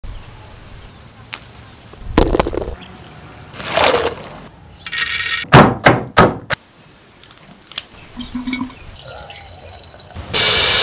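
A run of short kitchen sounds: a few clicks and a splash of liquid, then about four sharp knocks of a pestle pounding chillies in a mortar, and near the end a sudden loud hissing rush.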